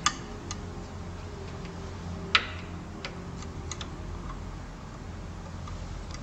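Scattered light clicks and taps of small metal parts on an embroidery machine head as its center shaft is being fitted back in by hand, with a louder click at the start and another about two seconds in, over a low steady hum.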